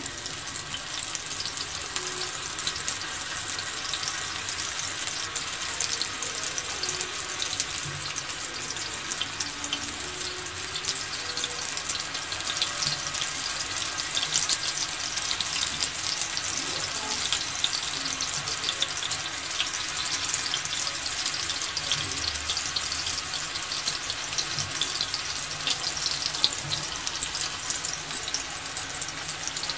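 Masala-coated raw banana slices shallow-frying in oil on a dosa tawa: a steady sizzle with fine crackling.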